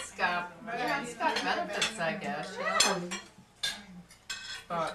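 Cutlery clinking against dinner plates, with a few sharp clinks in the last two seconds, under indistinct table conversation during the first three seconds.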